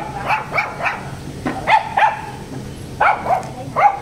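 Dog barking in quick runs of short, sharp barks, three bouts in a few seconds.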